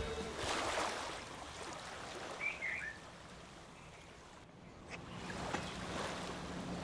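Faint outdoor ambience of soft water-like noise, with a short high chirp about two and a half seconds in and a low steady hum coming in from about five seconds.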